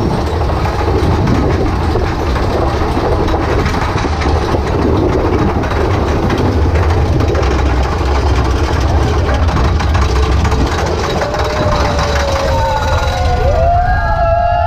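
Thunder Mountain mine-train roller coaster running along its track: a steady, low-heavy rumble. Near the end, riders' voices rise in long shouts.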